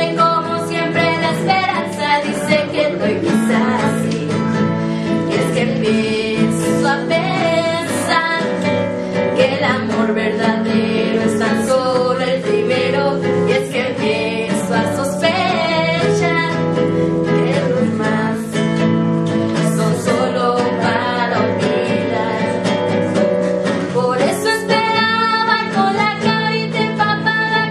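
Two women singing a Spanish-language pop ballad, accompanied by an acoustic guitar.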